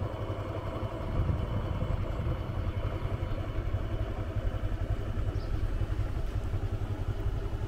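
Motorbike engine running at low speed as it is ridden over a rough, rocky dirt road.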